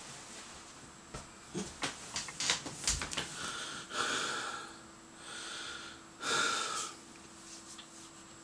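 A man breathing hard and snorting through his nose: three long, noisy breaths, after some small clicks and taps in the first few seconds.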